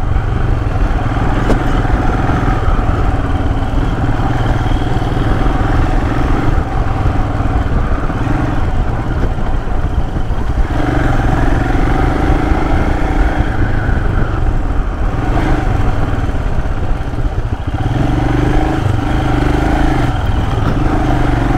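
Royal Enfield Himalayan's 411 cc single-cylinder engine running steadily under way on a dirt trail, its note shifting a little about halfway through as the throttle changes, over road and wind noise.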